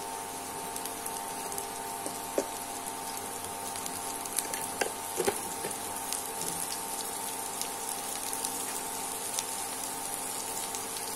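Pointed gourd pieces sizzling steadily in hot oil in a wok, with a few small ticks about two and five seconds in. Under the sizzle runs the induction cooktop's steady hum.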